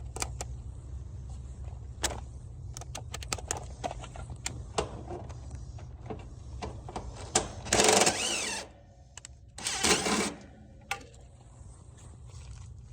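Clicks and knocks of tools and metal panel parts being handled over a steady low hum, with two short bursts of a small power tool's motor about eight and ten seconds in, as the condenser is opened to reach the run capacitor.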